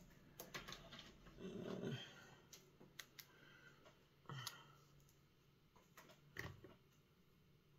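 Faint, scattered clicks and taps of small makeup containers and applicators being handled, with a short, low, grumbling sound about a second and a half in.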